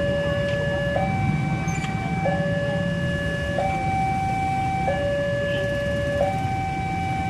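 Electronic two-tone warning alarm switching between a higher and a lower tone about every 1.3 seconds, over a steady low rumble of engine or vehicle noise.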